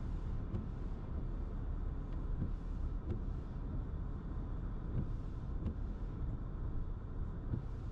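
Car driving slowly, heard from inside the cabin: a steady low rumble of engine and road noise, with a faint tick about every two and a half seconds.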